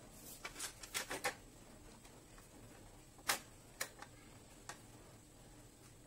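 Scattered sharp clicks and taps of a screwdriver and metal parts on a photocopier's fixing unit being handled during reassembly. There is a cluster of clicks about a second in and the loudest single click a little after three seconds.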